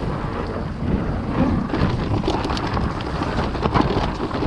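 Mountain bike descending a rough trail at speed: wind buffeting the helmet camera's microphone over tyres rolling on dirt, with a run of clacks and knocks from the bike's chain and frame over bumps that grows busier from about two seconds in.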